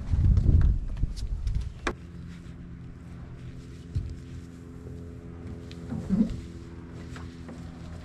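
A plastic sit-on-top kayak being handled: a low rumble in the first second, then a few scattered knocks and bumps, over a steady low hum.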